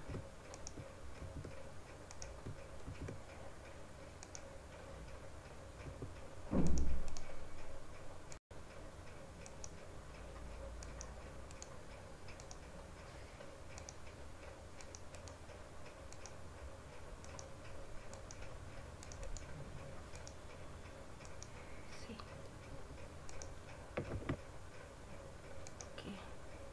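Faint, irregular clicking of a computer mouse as parts are selected and placed on screen. A brief low thump about six and a half seconds in, and a smaller one near the end.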